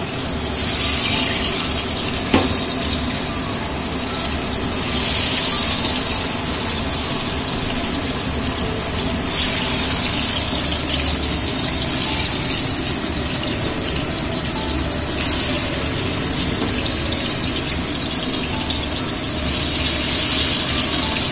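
Paneer cubes sizzling as they fry lightly in hot oil in a kadai, the sizzle flaring up several times as more cubes go into the oil. A single sharp knock about two seconds in.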